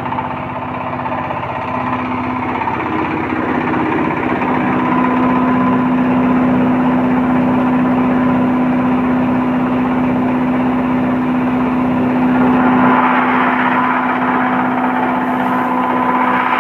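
24 hp single-cylinder diesel engine running steadily under a hammer mill on a test run, with a constant droning hum.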